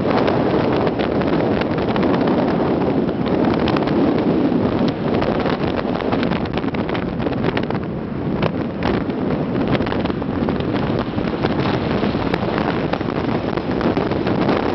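1998 Ford Ranger 4x4 driving on a dirt road: steady engine and tyre noise, with many small knocks and rattles and wind rushing over the microphone.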